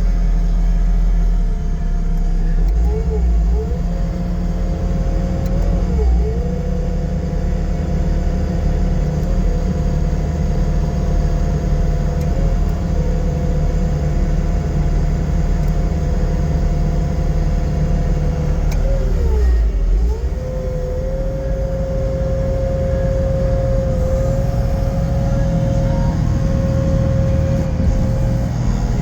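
Bobcat T770 skid steer's four-cylinder diesel engine running with a steady low rumble and a steady whine on top. The whine sags and recovers briefly a few seconds in, again about six seconds in, and once more about two-thirds of the way through.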